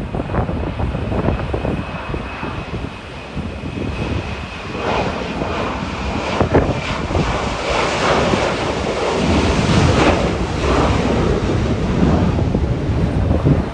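Boeing 737-900ER's CFM56 turbofan engines running at takeoff thrust during the takeoff roll. The rumble grows louder from about four seconds in to a peak near ten seconds, with a faint high whine fading out about five seconds in and wind buffeting the microphone.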